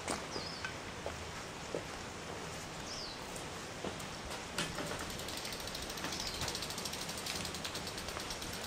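Bicycle freewheel hub ticking rapidly and evenly as the bike is wheeled along, coasting pawls clicking over the ratchet; it sets in about halfway through. Before it, two short falling chirps.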